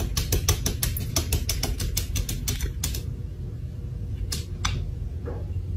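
A cat standing on its hind legs pawing rapidly at a glass door, its claws tapping the glass about six or seven times a second. The tapping stops about three seconds in, with two more taps a moment later.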